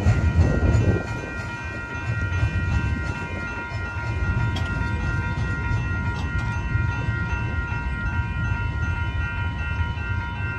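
Level crossing bell ringing steadily over the low rumble of a freight train's tail end rolling away, the rumble dropping after about a second. The bell keeps ringing after the train has cleared, a sign of a crossing malfunction.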